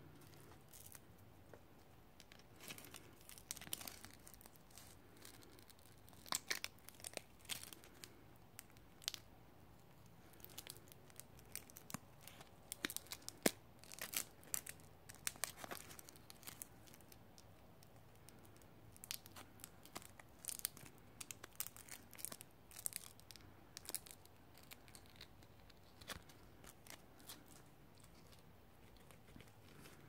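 Velcro (hook-and-loop) backing on embroidered morale patches being peeled apart in a string of short, irregular rips.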